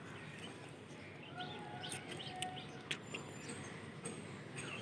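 Faint outdoor background with small birds chirping here and there, and two light clicks a little past the middle.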